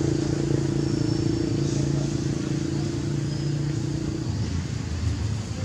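A motor engine running with a steady low hum that drops away about four seconds in.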